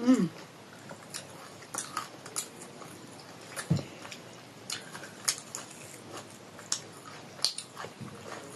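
Close-up eating sounds: chewing and biting food, with scattered sharp mouth clicks and smacks. A brief falling vocal sound comes right at the start.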